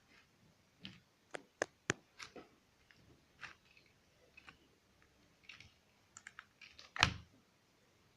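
Handling noise: scattered small sharp clicks and taps, several in quick succession in the first two seconds, and a single louder knock about seven seconds in.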